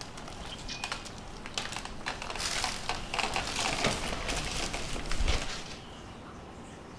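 Plastic medicine bag and packets crinkling and rustling as they are handled, loudest in the middle, with a dull thump about five seconds in.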